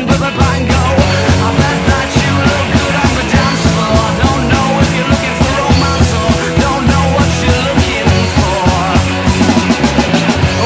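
Loud rock music with a steady drum beat, a heavy bass line and a singing voice.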